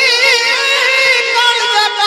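A singer holds a long note with wide, wavering vibrato in a devotional bhajan, over a steady accompanying drone. About one and a half seconds in, the held note gives way to a new, lower melodic phrase.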